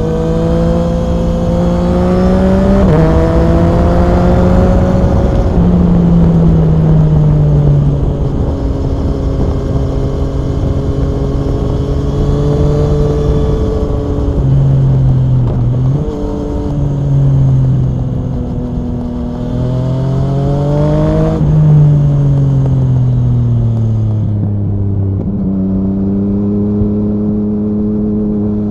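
Yamaha MT-09 SP's inline-three engine with an Akrapovic Racing exhaust, heard while riding. The engine note climbs and falls with throttle, with sudden pitch steps at gear changes about 3 and 6 seconds in and again around 16 and 21 seconds. It falls away steadily near the end as the bike slows, with wind rush underneath.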